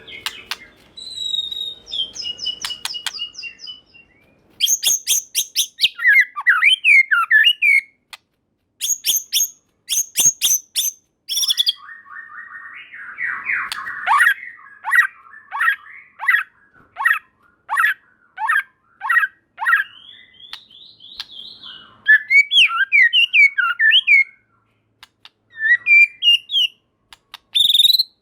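White-rumped shama singing: a varied string of whistled phrases that glide up and down, broken twice by fast clicking rattles, with a run of sharp descending notes in the middle.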